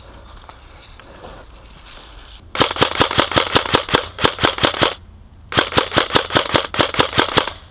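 Airsoft gun firing in two rapid full-auto bursts of about eight shots a second, each lasting about two seconds with a short pause between, starting a little after two seconds in.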